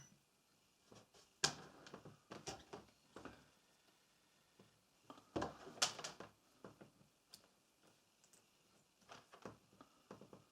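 Faint scattered clicks and taps: multimeter test probes being handled and touched to an LED's leads, with a louder cluster about five to six seconds in.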